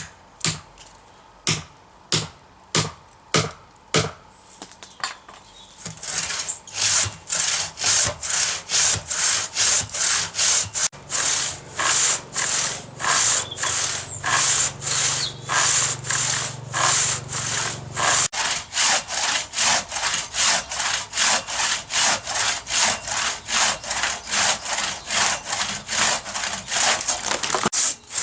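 Hand saw cutting eucalyptus wood by hand: a few slow, separate strokes, then from about six seconds in a steady, faster back-and-forth rhythm of about two strokes a second.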